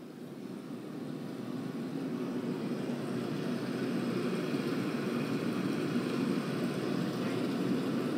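Played-back sound example from a climate-data sonification listening test: a low, rough noise that swells over the first few seconds and then holds steady.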